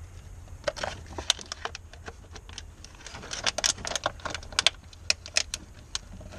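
Irregular sharp plastic clicks and crackles from handling a plastic bottle cut down into a makeshift funnel, with a quick run of clicks in the middle.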